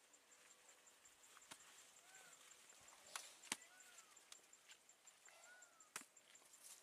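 Near silence: faint outdoor ambience with a few soft clicks, the strongest about halfway through and near the end, and several faint short chirps that rise and fall in pitch.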